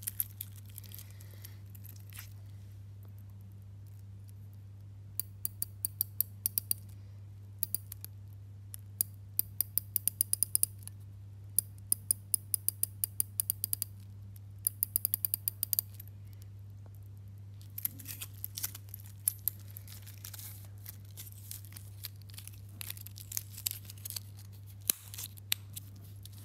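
Unidirectional dive bezel of an Invicta Pro Diver 8926OB watch being turned, giving several runs of rapid, sharp ratchet clicks. Later come irregular metal clicks and rattles from the stainless steel bracelet as the watch goes onto the wrist, with one sharp click near the end.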